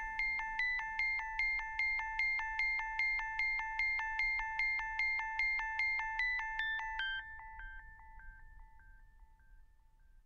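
Background music ending: a high pitched note repeated in a quick, even pulse with a steady higher line above it. It thins and fades out after about seven seconds.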